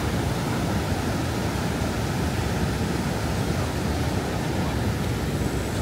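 Rushing white-water rapids of the Niagara River just above the American Falls: a steady, even rush of water, heaviest in the low range, with no breaks.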